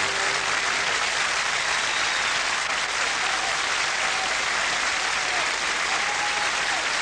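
Studio audience applauding steadily and evenly, with the band's last note dying away just at the start.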